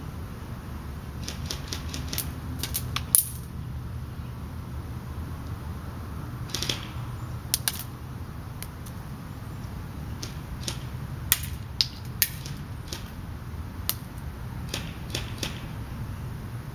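Airsoft BBs striking a target near the microphone: about twenty sharp, irregular clicks and taps, some in quick clusters, over a steady low wind rumble.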